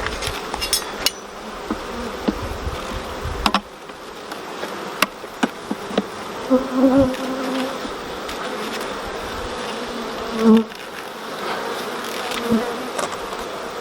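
Honeybees buzzing around an open hive, with a few bees passing close in short, louder buzzes. Scattered clicks and knocks come from the hive frames being handled.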